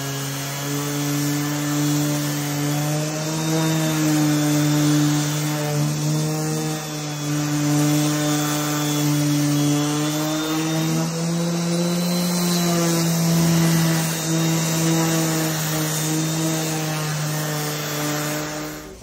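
DeWalt 5-inch random orbit sander running with 80-grit paper against thick drywall joint compound. It gives a steady motor hum that wavers a little in pitch, under the rough hiss of the disc scrubbing the mud.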